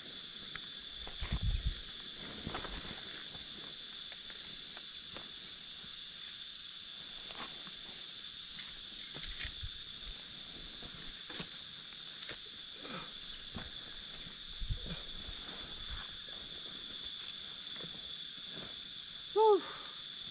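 Steady, high-pitched buzzing chorus of cicadas, unbroken throughout. Under it are occasional light knocks and rustles from tent setup, and a short voiced sound near the end.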